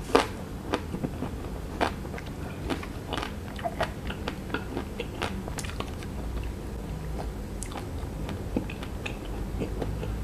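Close-miked chewing of a La Cremeria Almond ice cream bar's chocolate-and-almond coating: irregular crisp crunches and wet mouth clicks, thinning out after about six seconds.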